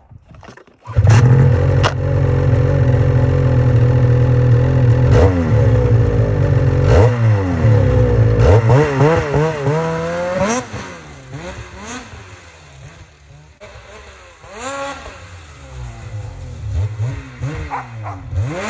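Turbocharged two-stroke snowmobile engine breathing through a GGB Quiet Can aftermarket exhaust. It comes in suddenly about a second in, runs at a steady fast idle, then revs up about eight seconds in and pulls away. After that it grows fainter, rising and falling in pitch as the sled is ridden around under load.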